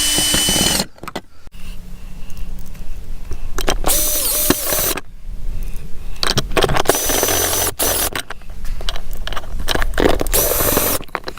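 Cordless drill/driver running in four short whining bursts, driving in the nuts on a kids' ride-on motorcycle, with clicks and clinks of small metal parts between the bursts.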